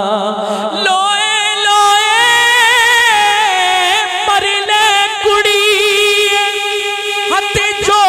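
Man singing a Punjabi Sufi kalam into a microphone, drawing out long, wavering held notes with heavy vibrato in a melismatic line. A few low thumps come near the end.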